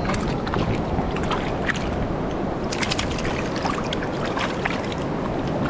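Steady rush of surf and wind, with many quick splashes and flicks of water as sea catfish thrash in a shallow rock pool; the splashing is busiest around the middle.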